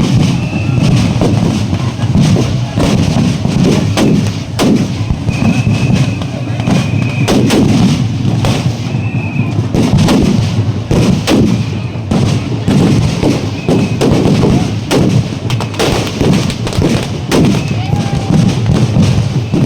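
Loud, fast, continuous drumming from Muharram procession drums, a dense stream of sharp beats over crowd noise, with a few brief high tones.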